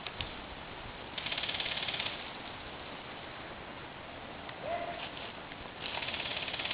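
Airsoft gun firing two full-auto bursts: a rapid rattle about a second long near the start, and another starting near the end.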